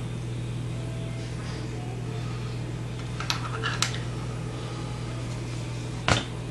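Steady low hum under light handling of 3D-printed ABS plastic frame parts: two small clicks about three and a half seconds in, and a sharper knock near the end.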